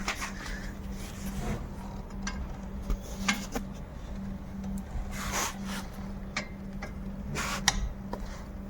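Metal parts of a disc brake assembly being handled and pulled apart: scattered clicks, knocks and short scrapes, with a steady low hum underneath. The brake pads are worn through to metal.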